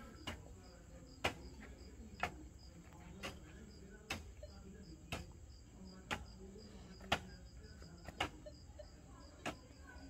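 Pickaxe striking hard-packed earth about once a second, each blow a sharp knock, digging a hole, with a high chirping repeating steadily behind it.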